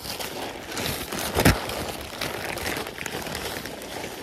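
Synthetic tent fabric rustling and crinkling as it is handled and unfolded out of its bag, with one loud thump about a second and a half in.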